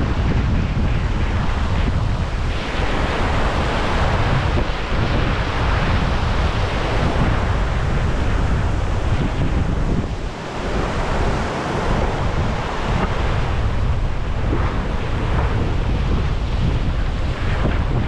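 Wind buffeting the microphone: a loud, steady rushing with a heavy low rumble, easing briefly about ten seconds in.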